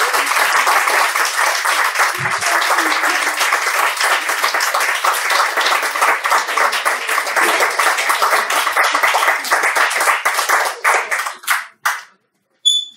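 Audience applause, dense clapping that thins out and stops about twelve seconds in, followed by a brief high beep just before the end.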